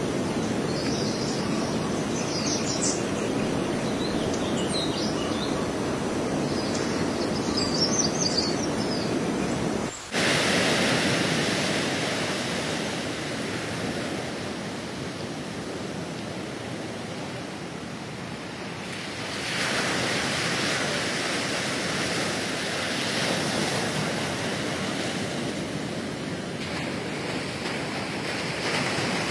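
Outdoor noise: a low rumble with small bird chirps now and then, then about ten seconds in it cuts to a brighter, steady rushing noise of wind and sea.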